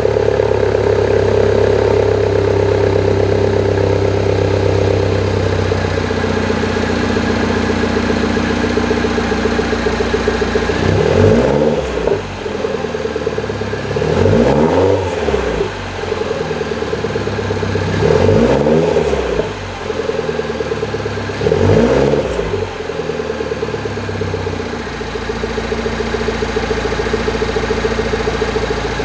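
2014 MINI Countryman S All4's turbocharged 1.6-litre four-cylinder running through a JCW intermediate pipe and silencer. It idles steadily, is revved four times in quick succession, each rev rising and falling back, then settles to idle again.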